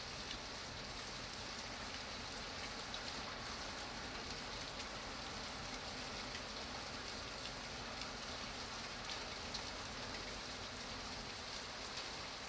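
Steady rain: an even hiss with faint drop ticks scattered through it.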